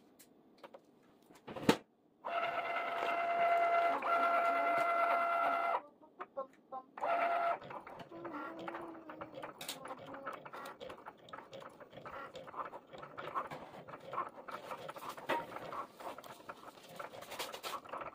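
A Cricut cutting machine's motors run with a steady whine for about three and a half seconds after a sharp click, stop, and start again briefly. After that come quieter, irregular clicks and rustling.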